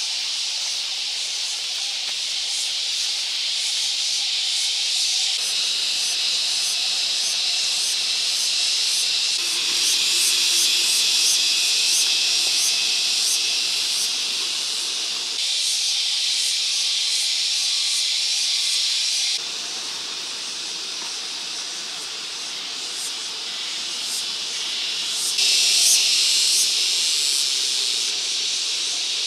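A steady high hiss that shifts abruptly in level and tone several times.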